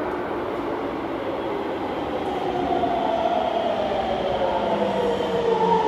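Chiba New Town Railway 9800 series train with Toyo GTO-VVVF inverter control pulling into an underground platform, its running rumble growing slightly louder. From about halfway, the inverter's whine falls in pitch as the train brakes to a stop.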